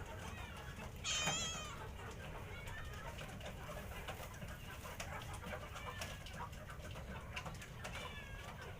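Stray domestic cats meowing for food: one loud, wavering meow about a second in, fainter meows throughout, and another clear meow near the end.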